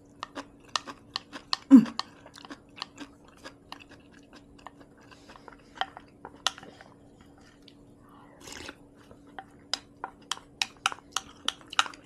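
Close-miked chewing of food: a rapid, uneven run of wet mouth clicks and smacks, with one louder short throaty sound that drops in pitch about two seconds in.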